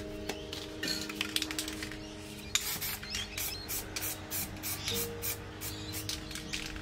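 Aerosol spray paint can hissing in short, quick bursts, several a second, from about two and a half seconds in.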